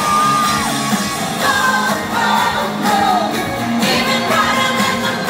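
Loud live pop music with a singing voice, played through a concert PA and heard from among the audience.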